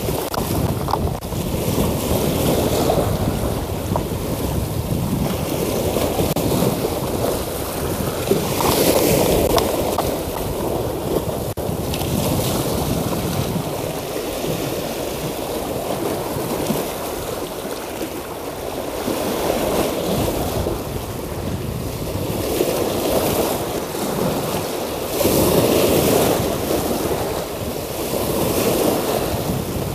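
Sea waves washing against shoreline rocks, swelling and easing every few seconds, with wind buffeting the microphone.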